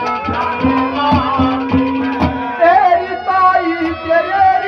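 Haryanvi ragni music: hand-drum strokes with sliding bass notes, about two a second, under sustained melody-instrument tones. A melody line bends in pitch in the second half.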